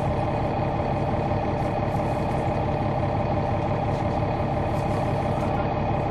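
Caterpillar C9 ACERT inline-six diesel of a 2004 Neoplan AN459 articulated bus, heard from on board, running at a steady, unchanging speed.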